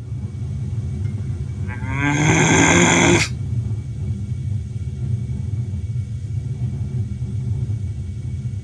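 A drawn-out vocal groan, wavering in pitch, starting about two seconds in and cutting off abruptly after about a second and a half, over a steady low hum.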